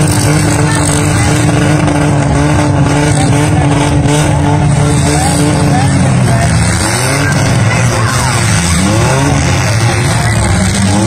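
Demolition derby cars' engines running loudly together. From about six seconds in, several engines rev up and down at once as the cars manoeuvre in the arena.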